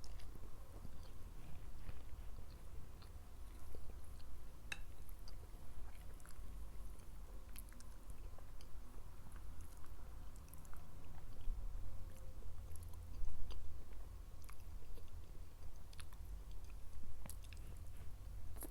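A person chewing food close to the microphone, with irregular sharp mouth clicks throughout.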